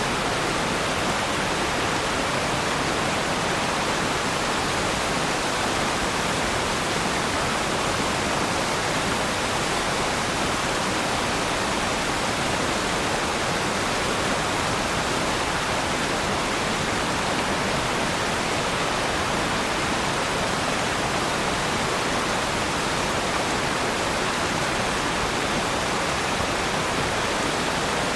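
Waterfall: falling water making a steady, even rush with no change.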